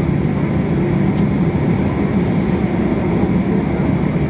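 Steady low rumble and hum in the cabin of a Boeing 737-800 taxiing in after landing, with one faint click about a second in.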